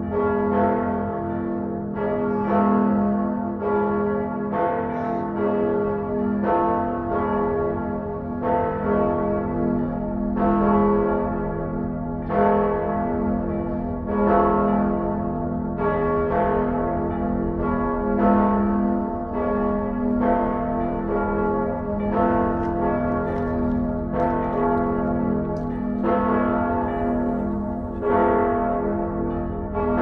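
Church bells ringing in a steady peal, about one strike a second. Several bell tones overlap and ring on over a low rumble.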